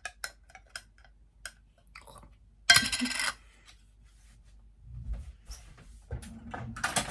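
Metal kitchenware clinking several times, then a louder clatter of pots or pans about three seconds in, with more clattering and handling noise in the last couple of seconds.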